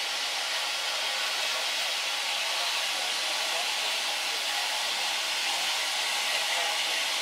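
Steam locomotive hissing steadily as steam escapes.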